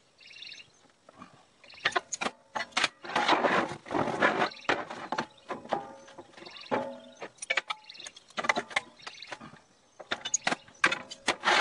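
Steel plates and angle iron clanking, knocking and scraping on a steel welding table as the firebox sides are set in place, some knocks leaving the steel ringing briefly. The clatter is sparse at first and busier from about two seconds in.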